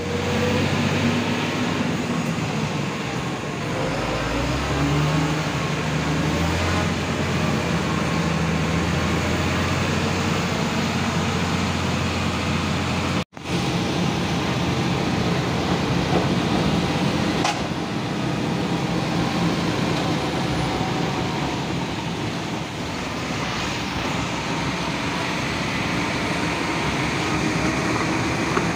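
Heavy truck's diesel engine running, its pitch stepping up about four seconds in, over a steady hiss; the sound breaks off for an instant about halfway through.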